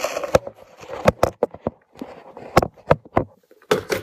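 Clear plastic tackle box handled on a stone countertop: an irregular string of sharp plastic clicks and knocks.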